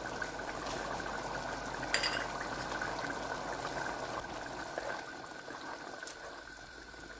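Chickpea curry bubbling steadily in a pan on the stove, the sauce at a simmer, with one sharp light click about two seconds in.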